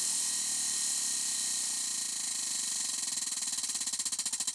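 Tabletop spinning prize wheel whirling, its pegs flicking the pointer so fast that the clicks run together into a buzz, then slowing near the end into separate ticks as the wheel loses speed.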